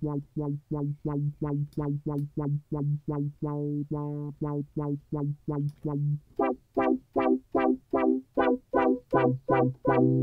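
Logic Pro Retro Synth patch playing short, squelchy, resonant stabs about three times a second, its square–pulse oscillator blend run through a 24 dB low-pass filter with resonance. The filter envelope's decay is being set for a snappy sound: around four seconds in the notes ring longer, then turn short again. About six seconds in, the pitch of the stabs shifts.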